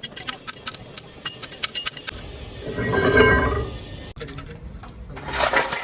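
Metal parts and tools clinking and knocking in repeated sharp clicks, with a louder, ringing rattle in the middle and a short hissing burst near the end.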